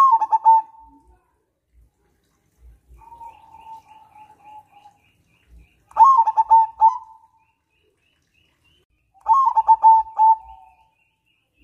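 Zebra dove (perkutut) singing its rolling coo: three loud phrases of quick pulsed notes, each about a second long, at the start, about six seconds in and near the end, with a softer, smoother phrase between the first two. Faint high chirping from another bird runs behind it.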